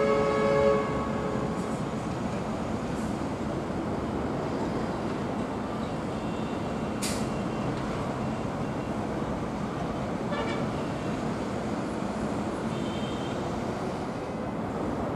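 Steady distant traffic noise over the landscape. A horn is sounding as it opens and stops under a second in, and a single short high squeak sweeps down about seven seconds in.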